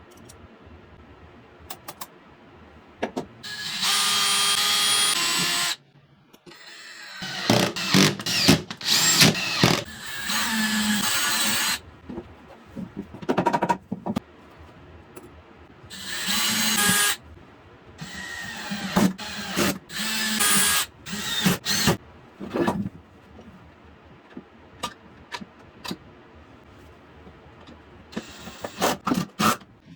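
A power tool running in several short bursts of a second or two, with knocks and clatter between the bursts.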